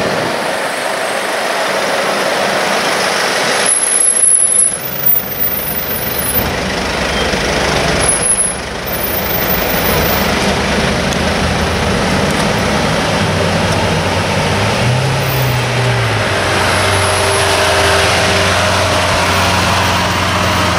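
Lamborghini Aventador's V12 engine running at low speed amid heavy street traffic, with a short rise and fall in revs about fifteen seconds in. The sound changes abruptly twice early on, at about four and eight seconds.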